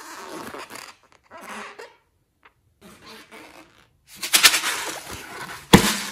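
Hands rubbing and squeezing a long latex balloon: short bursts of rubbing, then a louder stretch of handling from about four seconds in, with a sharp knock near the end.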